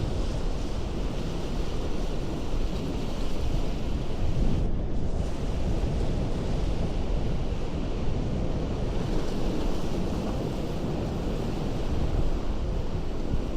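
Ocean waves breaking on a rocky coast: a steady, unbroken rush of surf.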